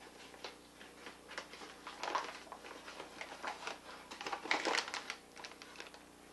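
Paper bag of granulated sugar and a measuring cup being handled: irregular soft rustles and light knocks, busiest about two seconds in and again just past the middle, as a cup of sugar goes into a glass bowl.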